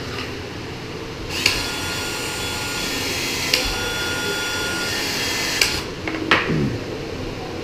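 Battery-powered PEX expansion tool running for about four seconds, expanding the end of the 1/2-inch PEX pipe and its ring for a ProPEX fitting, with a click about every two seconds as the head cycles. A knock follows shortly after it stops.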